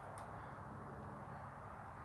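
Quiet room tone: a faint steady low hum, with one faint click just after the start.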